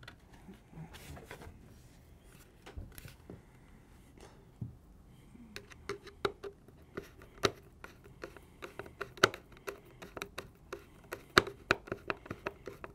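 Small irregular clicks and taps of hands working the reinforced-polymer buttstock of a Magpul Hunter X-22 chassis while its screw is threaded back in by hand. The clicks are sparse at first and come more often over the second half.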